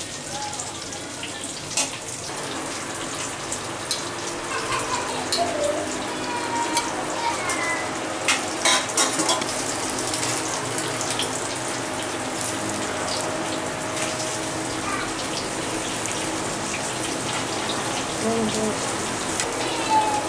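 Pieces of fish sizzling steadily as they fry in oil in a pan, with scattered sharp clicks as a metal spatula turns them.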